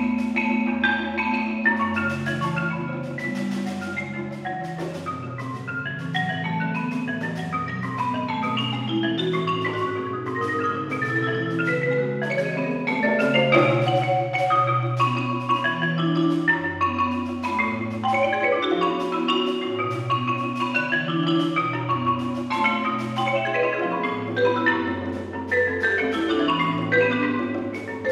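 Concert marimba played with four mallets: a fast, dense stream of struck notes, with the low bass bars ringing under quicker notes higher up.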